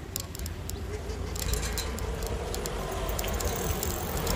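Wind buffeting the microphone and road rumble from riding along a paved street, with scattered rattling clicks.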